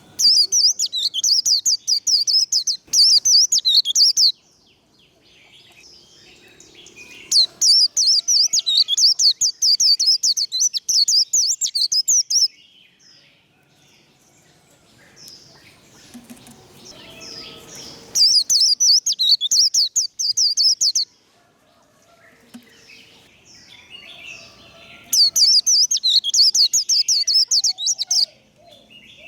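White-eye singing its fast, high, twittering 'líu' warble, the excited competition song of the bird, in four loud bursts of a few seconds each, with fainter chirps between.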